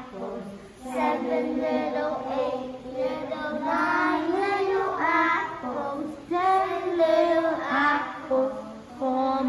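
A group of young children singing together with a woman, a counting song about little apples, in short phrases.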